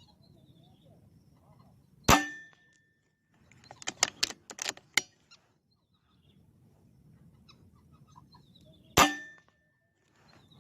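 Two rifle shots about seven seconds apart, each a sharp crack with a brief metallic ring after it. Between them comes a quick run of clicks and knocks lasting about a second and a half, over faint frog calls.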